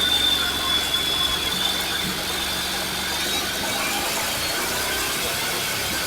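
Honda NC750X parallel-twin engine running steadily at low revs while riding, under wind and road noise. A thin high whine fades out about halfway through.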